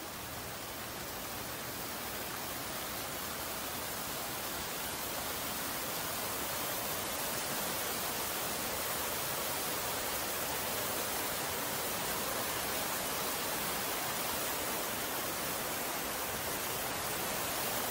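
Flash-flood torrent of fast, turbulent water rushing past, a steady even roar that slowly grows louder over the first several seconds.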